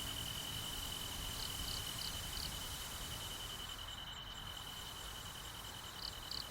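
Crickets chirping: a steady high trill pulsing several times a second, with short higher chirps in two small groups of three or four.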